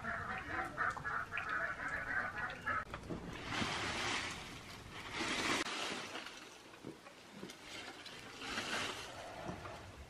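Domestic waterfowl calling in a quick choppy run for the first few seconds. After that come three short rustling swishes as snow-laden shrub branches are shaken.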